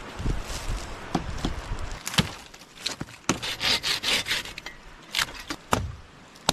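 Wood being handled: a series of sharp knocks and cracks, with a rasping, sawing-like stretch about halfway through.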